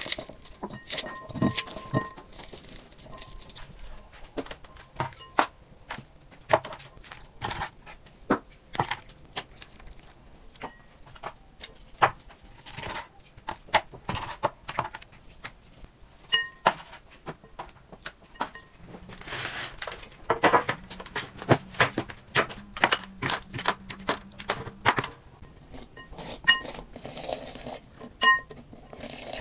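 Close-up food-preparation sounds: a run of irregular sharp clicks, taps and knocks as hands, a knife and a metal masher work pomegranate seeds in a glass bowl and raw chicken on a wooden board. A low steady hum joins for several seconds past the middle.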